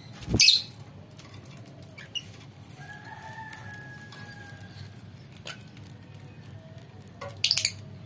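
Fischer's lovebirds calling: one loud, shrill burst just after the start and a short run of sharp shrieks near the end, with a faint drawn-out call in between.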